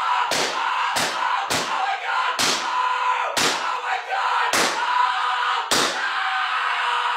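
A run of seven sharp hits, unevenly spaced about half a second to a second apart, over a steady background noise.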